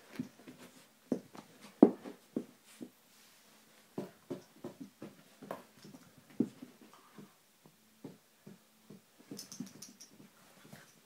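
Bengal cat and Cavalier King Charles spaniel play-fighting: irregular soft thumps and scuffles of paws and bodies on a rug, the loudest bump about two seconds in, with low growling at times. A short run of light high clicks comes near the end.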